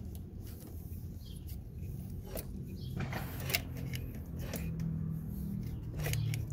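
Scattered short metallic clicks and taps of hand tools working around a car's alternator, at irregular moments, over a steady low hum.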